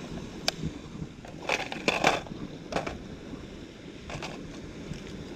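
Hard plastic lures and a clear plastic tackle box being handled: a sharp click about half a second in, then a louder cluster of clattering and rattling around two seconds in, and a few softer rattles after.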